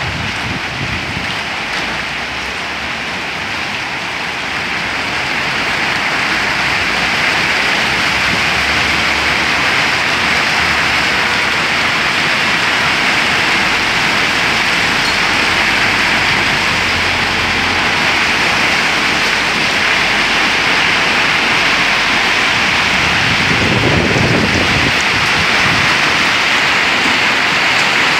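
Heavy rain pouring steadily onto a street, rooftops and pavement in a strong thunderstorm, growing a little heavier over the first few seconds. A brief low rumble comes through near the end.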